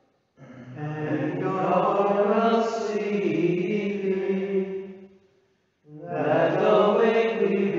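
Unaccompanied male plainchant of the Compline office, sung in two phrases with a short breath pause about five seconds in.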